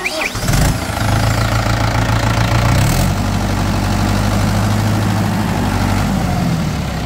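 Mahindra 575 DI XP Plus tractor's four-cylinder diesel engine running, coming up within the first second and then holding steady, its note shifting slightly about three seconds in. The engine sounds cracked and harsh rather than round, which the mechanic takes as a sign of the new tractor's RPM drop and lack of pulling power.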